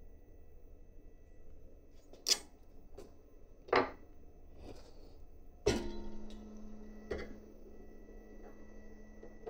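Work sounds of hand-assembling a 3D printer: three sharp knocks of tools or metal parts being handled and set down, a second or two apart, the middle one loudest. The last knock, about halfway through, is followed by a low steady hum that lasts several seconds.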